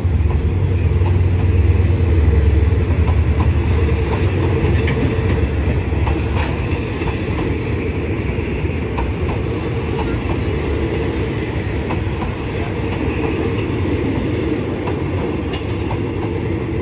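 State Railway of Thailand passenger coaches rolling past: a steady rumble of wheels on track that eases a little after the first few seconds, with faint clicks over rail joints and brief high wheel squeals, about six seconds in and again near the end.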